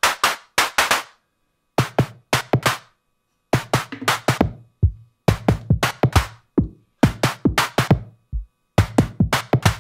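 Electronic drum groove from the Bugcrack drum voices on an Ornament and Crime Eurorack module: sharp, clustered hits with a deep kick on some beats. The snare's blend of white noise and oscillator is sequenced, so its tone varies widely from hit to hit.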